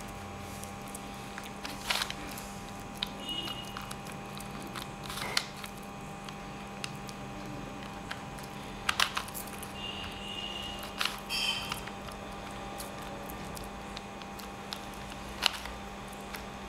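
Rubik's cube being turned by hand: scattered plastic clicks a few seconds apart, over a steady hum.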